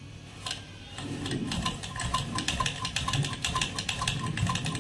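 Domestic straight-stitch sewing machine sewing a test seam through a scrap of cloth, starting up about a second in and running at a steady rhythmic clatter of about five stitches a second. It is a test of the stitch after the upper-thread tension spring has been reset.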